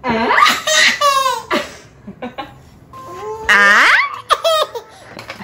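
A 9-month-old baby laughing hard in loud belly laughs, in two spells of bursts with a lull between them.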